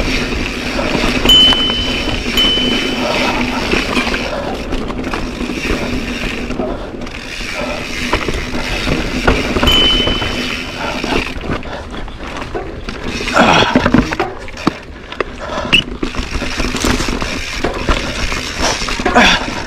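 Mountain bike riding down a dirt singletrack, heard from a GoPro on the bike: steady tyre and wind noise with a low hum and rattling. There are a few brief high-pitched squeals early and about halfway, and louder clattering jolts about two-thirds through and near the end.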